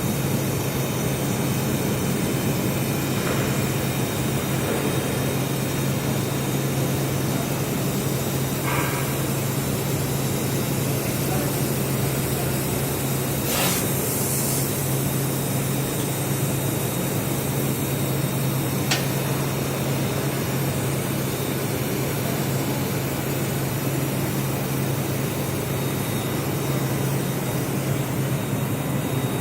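Plasma welding machine running: a steady hissing roar over a constant low hum.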